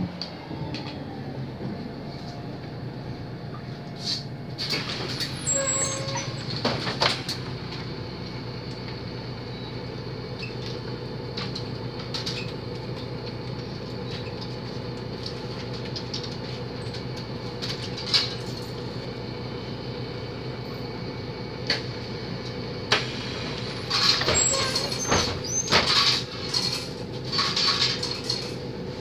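Inside a Mercedes-Benz O 530 Citaro city bus under way: a steady engine hum with body and fittings rattling. A burst of clatter comes a few seconds in, single knocks follow midway, and a longer spell of rattling comes near the end.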